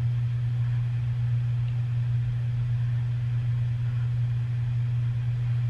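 Steady low-pitched hum with a faint hiss over it, unchanging throughout.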